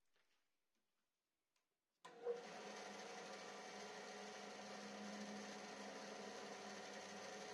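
Near silence, then about two seconds in a band saw's motor and blade start running steadily without cutting, with a brief louder blip just after they start.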